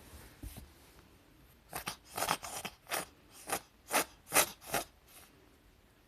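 A rapid string of about nine short, sharp sneezes, two to three a second, starting about two seconds in and stopping a little after five seconds.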